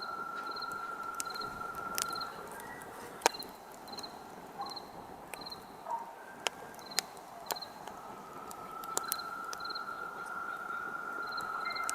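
Campfire crackling, with scattered sharp pops, one loud pop about three seconds in. Crickets chirp in short repeated pulses throughout, and a steady high hum fades out for several seconds in the middle.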